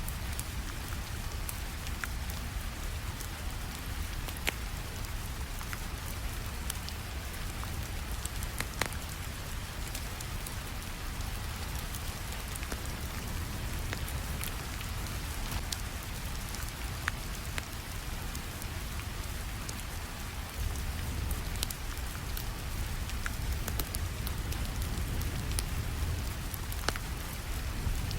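Steady rainfall with a low rumble, mixed with scattered sharp crackles and pops from a wood fire. The rain grows slightly louder about 21 seconds in.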